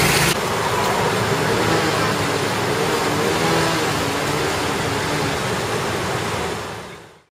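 Steady rush and splash of high-tide floodwater in a street, with a motor vehicle engine running under it. It fades out near the end.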